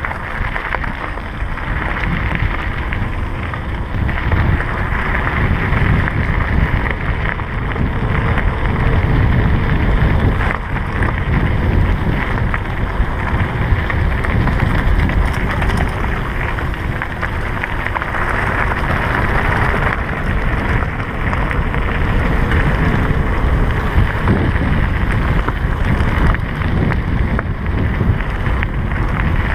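Steady wind rushing over a handlebar-mounted GoPro's microphone on a mountain bike going fast downhill, mixed with the tyres rolling over a loose gravel road; the noise is heaviest at the low end.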